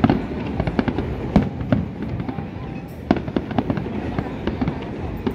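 Aerial fireworks display: a continuous run of shell bursts and crackling reports, irregular and overlapping, with the sharpest bangs right at the start, about a second and a half in, and about three seconds in.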